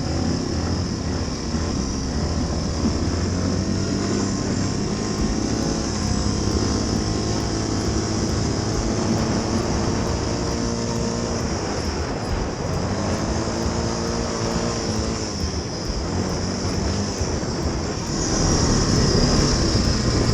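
ATV engine running under way, its pitch rising and falling several times as the throttle opens and closes.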